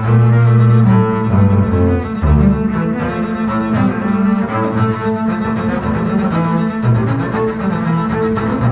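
Two double basses playing a tango duet with bows: a low line of long held notes under a higher bowed melody.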